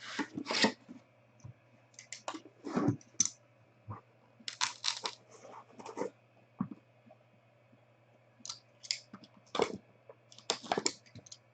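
Trading card packaging and cards handled by hand: irregular crinkling, tearing and clicking as a sealed box of sports cards is opened.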